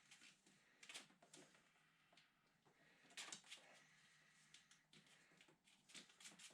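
Near silence with faint, scattered clicks and rustles of small handling noises, a little stronger about a second in and just after three seconds.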